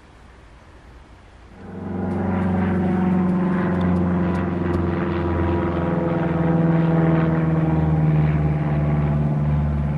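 Engine drone of a small propeller-driven plane passing overhead. The steady drone comes in suddenly about a second and a half in and drops slightly in pitch around the middle.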